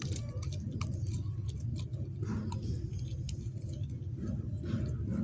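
Beagle chewing a raw chicken breast bone, with irregular crunching and cracking clicks as the bone is bitten, over a steady low rumble.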